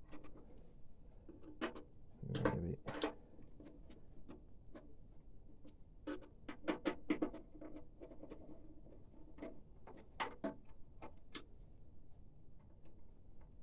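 Scattered light clicks and taps of hands working on a printer's plastic parts, with a duller knock about two and a half seconds in.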